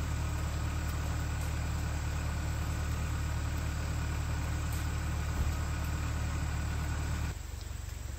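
An engine idling steadily with a low hum, which cuts off suddenly about seven seconds in.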